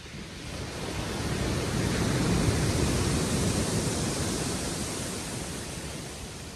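A wave breaking and washing up a shingle beach: a rushing noise that swells over about two seconds, then slowly fades.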